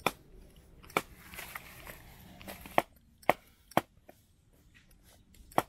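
About six sharp knocks at irregular intervals, with a soft rustle between the second and third.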